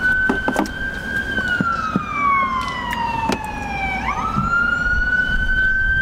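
Ambulance siren in a slow wail. The pitch holds high, glides slowly down over nearly three seconds, then sweeps quickly back up about four seconds in and holds high again, over a low traffic rumble.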